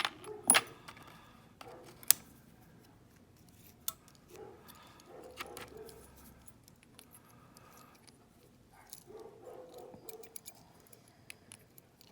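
Metal clicks and clinks of a key and a shim being worked into a Master Lock No. 29 padlock cylinder to push the plug out. There are sharp clicks about half a second and two seconds in, then scattered light clicks and handling noise.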